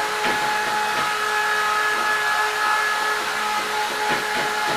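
Handheld hair dryer running steadily on its highest setting: a constant rush of air with a steady motor whine.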